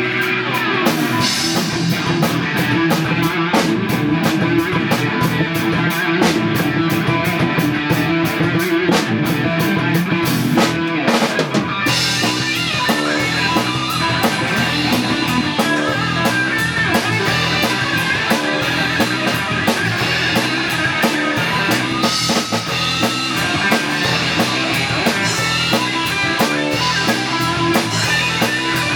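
Rock music with electric guitar and a driving drum kit, with fast, steady drum hits throughout; the sound fills out in the highs about twelve seconds in.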